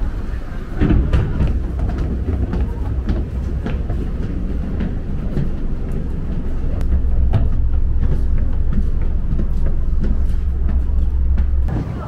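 Steady low rumble of a moving vehicle heard from on board, with scattered light clicks and rattles over it; the rumble cuts off abruptly near the end.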